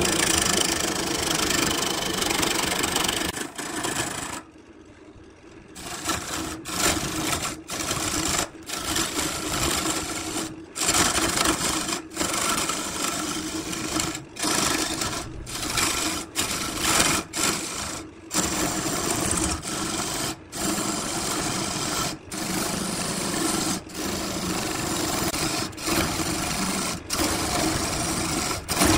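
Wood lathe running while a hand-held gouge cuts into the spinning wood blank: a steady motor hum under the hiss and chatter of the cut. The sound cuts off sharply and comes back many times, with a longer quiet gap about four seconds in.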